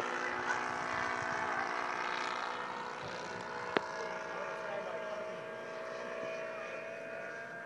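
Radio-controlled model airplane engine running in flight, a steady high whine that slowly fades as the plane flies farther off. A single sharp click sounds about four seconds in.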